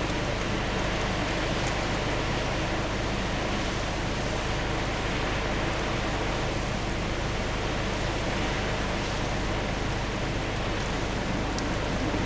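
Heavy storm rain with wind: a steady, even rush of noise that holds at one level, with a few faint ticks of drops.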